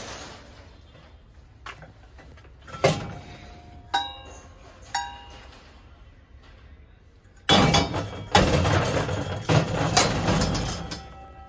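Tall brass oil lamps knocking against metal as they are handled: three separate clinks, each ringing briefly, about three, four and five seconds in. From about seven and a half seconds in, a louder stretch of scraping and knocking from the brass pieces being moved, which stops near the end.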